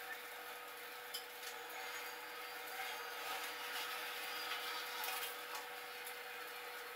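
Steady hiss of rain heard through a window, with a few sharp ticks of drops striking, over a faint steady hum.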